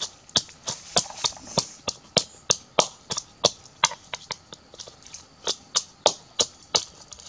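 A pestle pounding in a small coconut-shell bowl: sharp knocks in a steady rhythm, about three a second.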